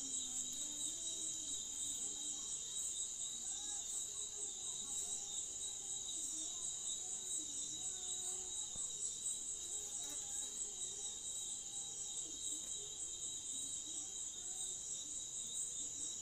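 Steady, shrill high-pitched drone of an insect chorus, pulsing slightly, with a faint wavering melody underneath.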